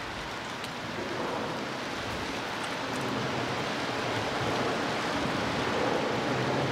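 Steady hiss of rain that grows slowly louder, with a faint low hum underneath.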